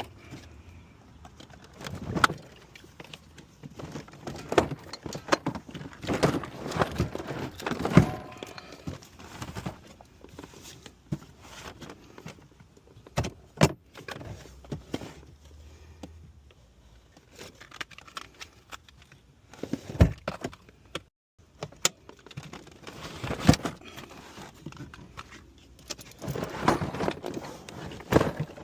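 Irregular clinking, rattling and knocking of tools and small metal parts being handled, with several sharp clacks.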